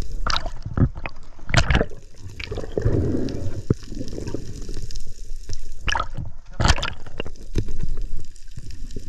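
Underwater sound through a camera housing: water gurgling and bubbling, with several sharp knocks and clicks, the strongest about a second and a half in and again near seven seconds.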